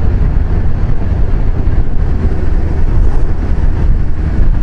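Steady wind rush on a helmet-mounted microphone while riding a 2014 Kawasaki Versys 1000 at road speed, with the bike's inline-four engine droning underneath.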